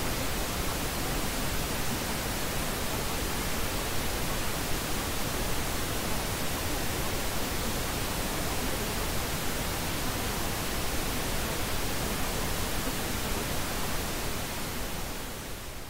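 Steady masking noise of a subliminal track: an even hiss across all pitches with no tones or rhythm, fading out near the end.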